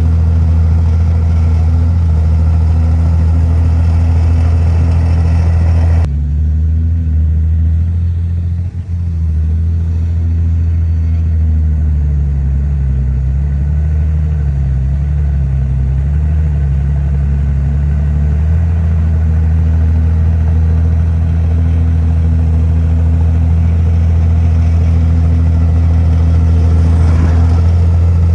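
Komatsu bulldozer's diesel engine running. About six seconds in, the higher part of the sound drops away. From about eleven to eighteen seconds the engine note wavers down and up, then it settles back to a steady run.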